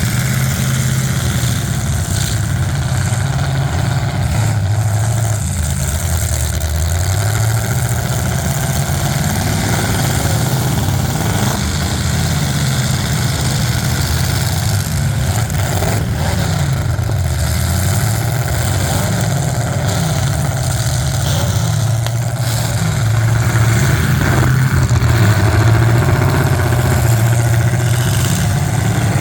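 Demolition derby cars' engines running and revving, the pitch rising and falling, with a sharp knock about halfway through.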